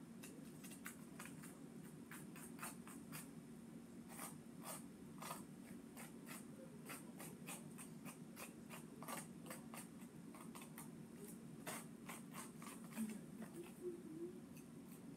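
Small plastic fork scraping and tapping in the plastic tray of a DIY candy kit, pushing soft candy paste into the moulds: many short, irregular scratches and clicks over a low steady hum.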